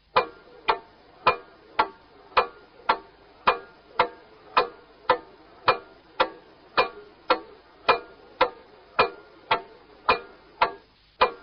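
Clock ticking steadily at about two sharp, slightly ringing ticks a second, marking off the last seconds before midnight.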